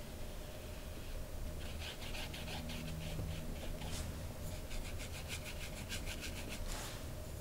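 Paintbrush rubbing poster paint onto hot-pressed watercolour paper in a run of quick back-and-forth strokes, about five a second, starting about one and a half seconds in and stopping shortly before the end.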